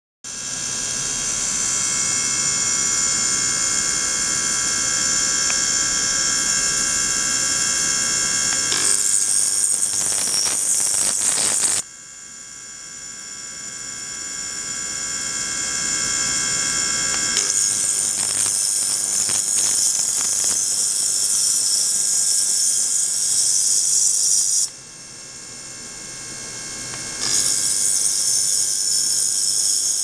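Ultrasonic oscillation of a water-filled glass jar driven by a probe from a function generator: a high-pitched whine of many steady tones over a hiss. The sound changes abruptly about nine seconds in, drops away suddenly around twelve and twenty-five seconds, creeps back up and returns full each time.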